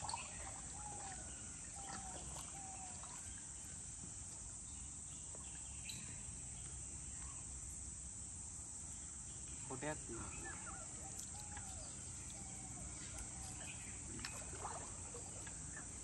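Steady high-pitched insect chorus, crickets or cicadas, with a few short bird calls over it early on and a brief louder call about ten seconds in.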